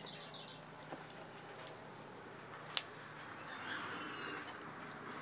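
Quiet sounds of food being peeled and eaten by hand at a table: a few light clicks and taps, with one sharp click nearly three seconds in, over faint steady background noise.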